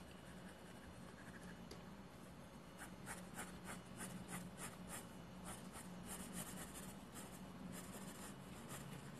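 Pencil scratching on paper: faint, quick back-and-forth shading strokes, about three a second, becoming clearer about three seconds in.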